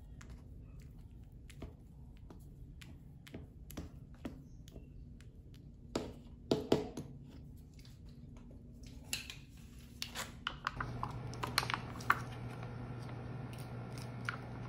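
Light clicks and taps of a wooden utensil against a paper instant-udon cup as the noodles are stirred, with a few louder knocks about six seconds in. A low steady hum comes in about eleven seconds in.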